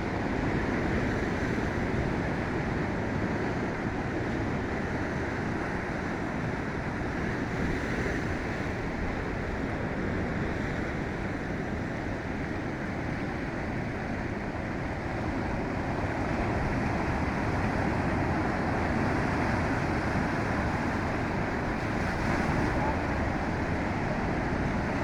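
Ocean surf on a beach: a steady rush of waves, growing slightly louder in the second half.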